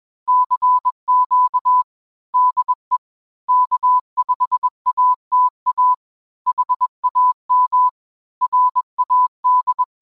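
Morse code sent as a keyed tone of about 1 kHz: short and long beeps (dits and dahs) grouped into characters with short pauses between them.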